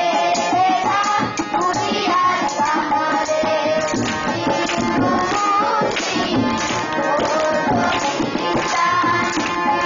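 Schoolchildren singing a song together, accompanied by a harmonium and a steady drum beat.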